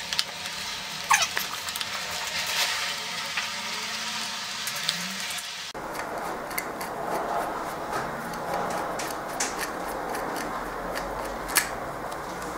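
Screwdriver backing screws out of a car windscreen wiper motor's gearbox cover: small metal clicks and scrapes of the bit in the screw heads, with a short squeak about a second in.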